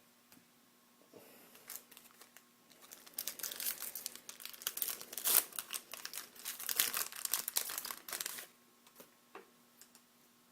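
Plastic wrapper of a hockey trading card pack crinkling as it is torn open and handled, with dense crackling that builds from about a second in and stops about eight and a half seconds in, followed by a few light clicks of card handling.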